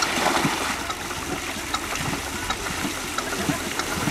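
Muddy water splashing and churning around a small homemade tractor stuck in a mud pit, with the tractor's engine running steadily underneath.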